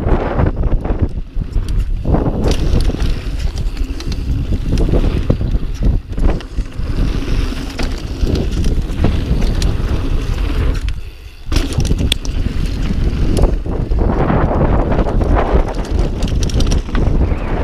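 Mountain bike descending a dirt trail at speed: wind buffeting the microphone over tyre noise and the clatter of the bike over bumps, easing off briefly about eleven seconds in.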